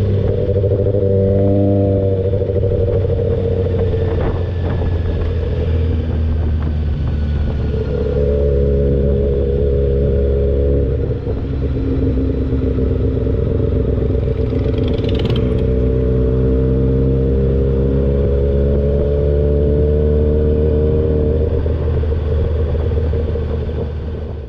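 Kawasaki ZX-6R inline-four running at a steady cruise, heard from the rider's seat; the engine note shifts pitch a few times and dips briefly about eleven seconds in. A brief high chirp cuts through about fifteen seconds in, and the sound fades out at the very end.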